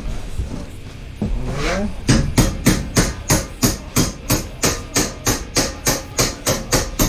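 A hammer striking in a fast, even run of blows, about three a second, starting about two seconds in.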